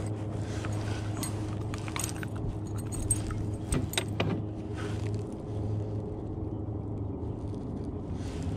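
Clothing rustling against the microphone and metallic clinking and rattling as a freshly caught pike and its lure are handled, with a few sharp clicks about three to four seconds in, over a steady low hum.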